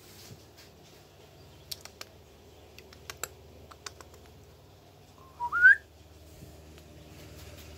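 A few light clicks and tinkles from a cat's collar bell and tag, then about five seconds in a single short whistle-like chirp rising in pitch, the loudest sound.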